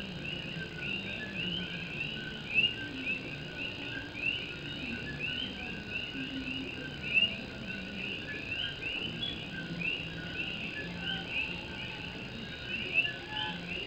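A chorus of many coqui frogs calling all at once. Their two-note "co-qui" calls overlap densely: a short lower note, then a quick rising whistle, repeated over and over.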